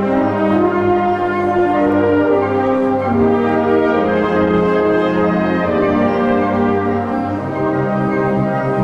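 A school wind band playing sustained, brass-led chords that change every second or two over a held bass line, the bass moving to a new note near the end.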